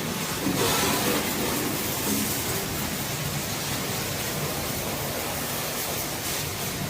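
Steady hiss of water spraying from a washing hose onto a tractor.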